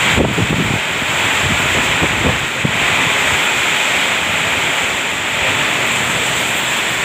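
Heavy rain pouring down in a violent storm, a loud steady rush, with gusts of wind buffeting the microphone.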